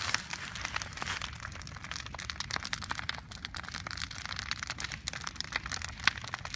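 Large wood bonfire burning, crackling and popping in quick, irregular snaps over a low steady rumble.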